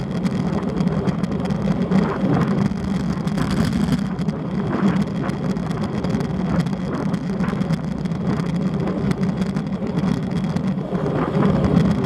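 Steady wind rush over the microphone of a Shimano Sportcam action camera on a moving road bike, mixed with the hum of tyres on the road.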